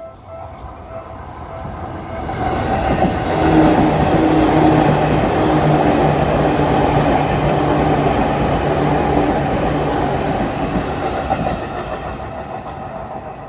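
Seibu 2000 series electric commuter train passing over a level crossing: its rumble and wheel clatter swell over the first few seconds, hold loud for about eight seconds, then fade. The crossing bell's repeating clang can be heard at the start and again near the end.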